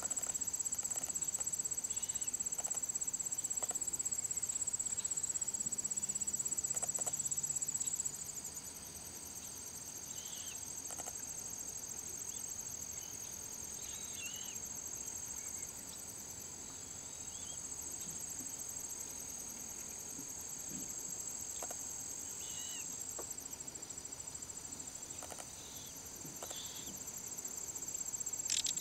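Steady, shrill, high-pitched insect chorus, such as crickets or katydids, over a marsh. It drops off about eight seconds in and swells again near the end. Faint short chirps come now and then.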